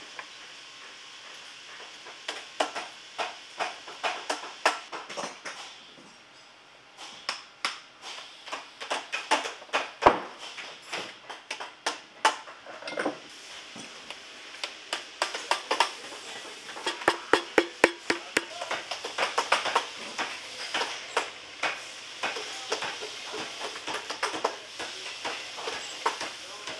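Bootmaking workshop sounds: an irregular run of sharp taps, clicks and knocks from hand tools and a machine working a tire-tread boot sole, with a quieter stretch about six seconds in.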